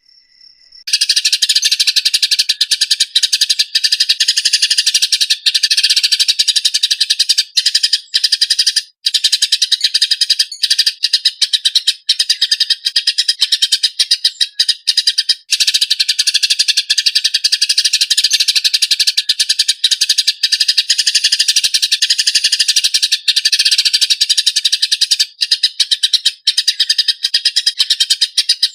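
Eurasian tree sparrows giving harsh, fast, dense fighting chatter, a continuous stream of rapid chirps that starts about a second in and barely pauses.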